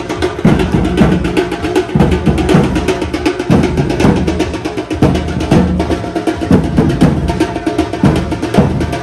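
Percussion-led music: fast, dense drum strokes over a heavier recurring beat.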